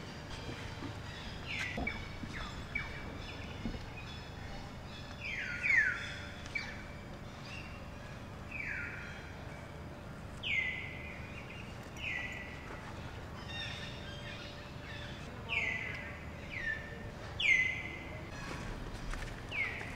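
Repeated short, high animal calls, each sliding down in pitch, about a dozen at irregular intervals over a steady outdoor background hiss, the loudest about six seconds in and near the end.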